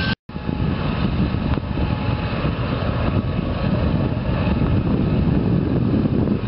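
A crossing bell breaks off at a cut right at the start. After it comes a steady low rumble of diesel freight locomotives and a rolling train.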